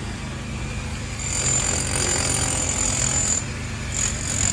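Steady mechanical rattling of machinery, with a thin high whine from about a second in until past three seconds and again near the end.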